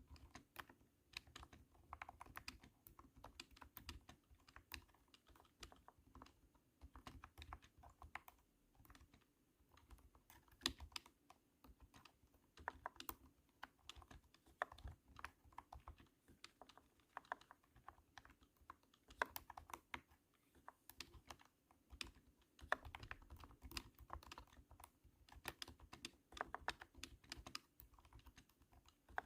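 Typing on a cat-shaped keyboard: runs of rapid, thunky keystrokes with brief pauses between the bursts.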